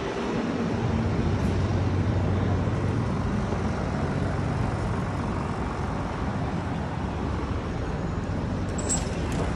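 Steady road traffic on a city avenue: cars and vans running and passing, with a low engine hum during the first few seconds.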